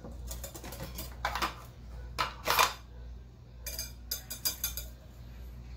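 Metal kitchen tongs clicking and scraping against a glass baking dish as graham crackers are laid in. Quick clusters of clicks come near the start and again about four seconds in, with the loudest clatter about two and a half seconds in. A low steady hum runs underneath.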